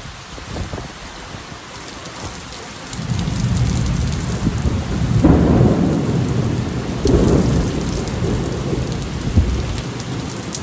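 Heavy rain falling steadily with a roll of thunder that builds about three seconds in, swells to two loud peaks, then slowly rumbles away.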